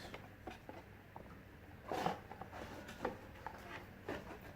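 Light clicks and brief rustles from hands handling small plastic camera parts and packaging, with the most noticeable rustle about two seconds in.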